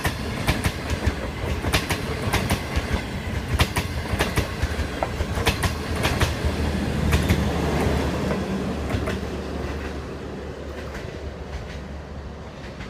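Passenger coaches' wheels clattering over rail joints as the train passes close by, a quick clickety-clack over a low rumble. After the last coach goes by about seven seconds in, the clatter stops and the rumble fades as the train draws away.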